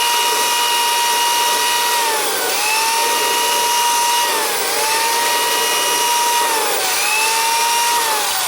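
Cordless drill spinning a tire-repair buffer against the inner liner of a tire, scuffing the rubber around a puncture before patching. It runs with a steady whine that sags briefly about every two seconds as it is pressed against the rubber, then picks up again.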